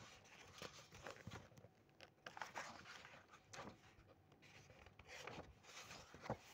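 Near silence: room tone with faint, scattered small rustles and clicks.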